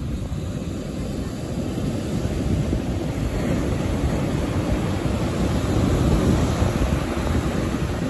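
Sea surf breaking and washing up a sandy beach: a continuous rush of water with a heavy low rumble, swelling louder around six seconds in as a wave breaks.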